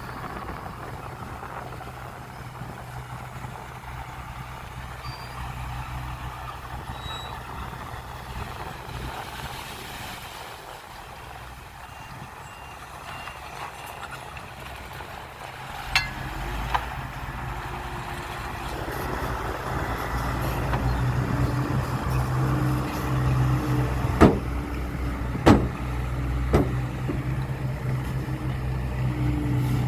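Heavy diesel engine of earthmoving machinery running steadily, growing louder about halfway through. There are a handful of sharp knocks in the second half.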